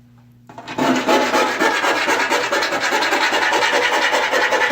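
A hand file rasping steadily against the sawn edge of a sheet-metal hole, smoothing off the burrs. It starts about half a second in as a continuous grating rasp.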